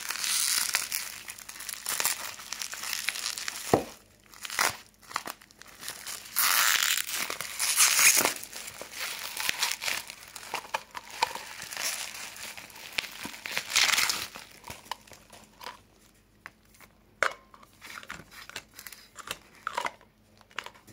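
Plastic wrapping crinkling and tearing as it is cut and pulled off an aerosol spray can by hand. There are loud bursts of rustling for the first two-thirds, then only quieter, sparse rustles and light taps near the end.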